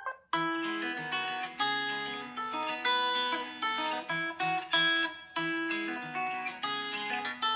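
Xiaomi 11 Ultra ringtone: a plucked acoustic-guitar melody in a repeating pattern of notes. It starts about a third of a second in, just after a mallet-like ringtone cuts off.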